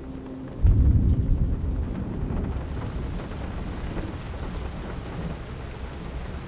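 A deep rumbling boom about half a second in, loud at first and fading slowly over several seconds, over a steady hiss.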